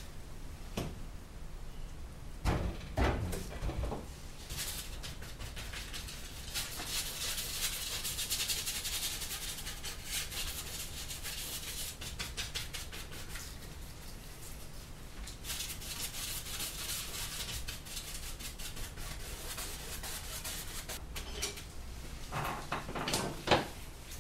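Canvas knocking against the wooden easel a few times as it is set down, then a paintbrush scrubbing oil paint onto the stretched canvas in quick, rapid strokes. A few more knocks come near the end.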